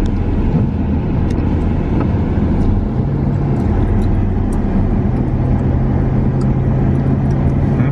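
Car driving along: steady engine hum and road noise. The engine note rises a little about three seconds in, settles back, and rises again near the end.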